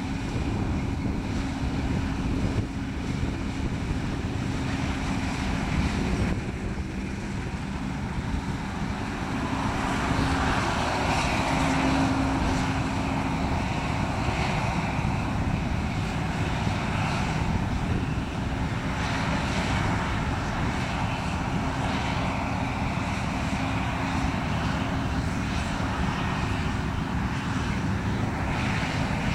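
New Holland CX6080 combine harvester running while harvesting grain: a steady engine drone with a low hum from the machine's threshing and header drives, swelling slightly about ten seconds in.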